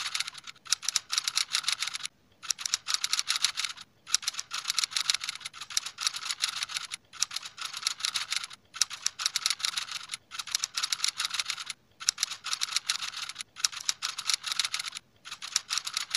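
Typing sound effect: rapid runs of keystroke clicks, broken by short pauses about every one and a half seconds.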